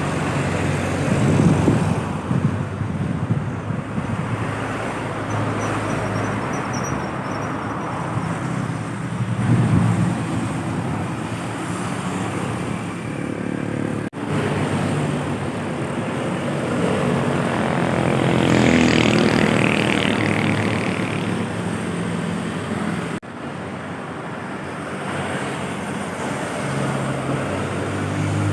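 Heavy trucks and buses running on a road: engine noise and road noise. The sound changes abruptly twice, about 14 and 23 seconds in, as one clip cuts to the next.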